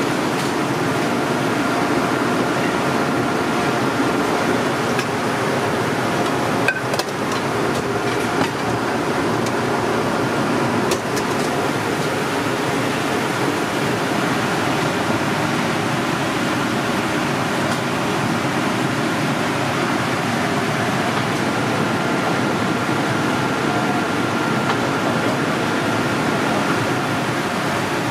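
Steady rushing hum of a commercial kitchen, like a ventilation hood fan running, with a few faint clicks about 7 and 11 seconds in.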